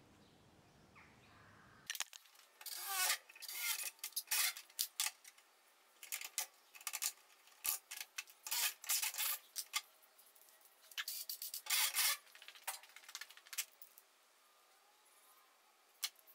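Irregular metallic clinks, knocks and scrapes of hand tools and a steel bracket being handled and fitted in a car's engine bay. They come thick from about two seconds in for some ten seconds, then only a few clicks near the end.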